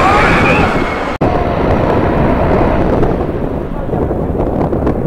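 Wind buffeting the microphone in a loud, rumbling rush. About a second in the sound cuts out for an instant, and the high hiss dies away after about three seconds.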